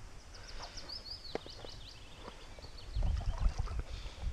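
A small songbird sings a quick run of short, high, sweeping notes. About three seconds in, a louder low rumble of wind or handling noise on the microphone takes over.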